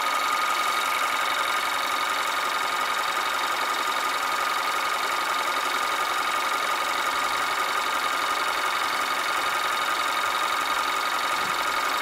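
2014 Kia Soul's engine idling steadily, heard up close in the engine bay, with a steady high whine over it.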